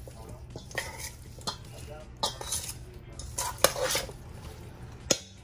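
Marinated chicken wings being turned by hand in a stainless steel mixing bowl: irregular taps and knocks against the metal bowl, the sharpest a little past halfway and again near the end.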